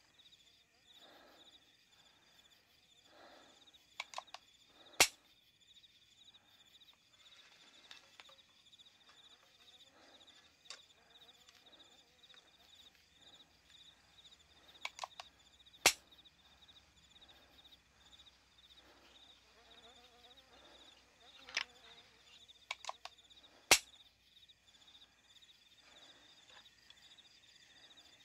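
Small nickel-plated revolver dry-firing on empty chambers three times: each time one or two lighter clicks are followed by a sharp, loud metallic snap of the hammer falling. Crickets chirp steadily throughout.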